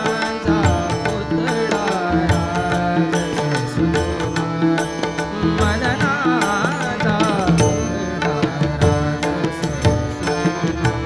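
Indian classical devotional music, a Marathi abhang: a male voice sings wavering, ornamented melodic runs over a steady harmonium and tanpura drone, while tabla and small taal hand cymbals keep a busy rhythm.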